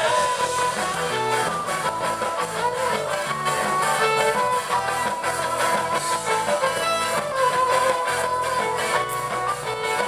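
Live rock band playing an instrumental passage, with a guitar playing a sustained, bending lead line over the rhythm section.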